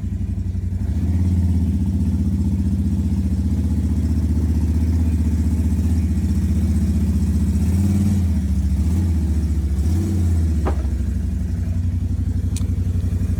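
Vehicle engine running at low speed while reversing. It picks up about a second in and the throttle rises and falls a few times later on, with a short click near the end.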